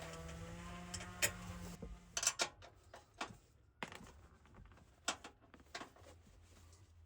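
A small electric motor whirs steadily for about two seconds and stops, followed by scattered sharp clicks and knocks of tools and metal parts.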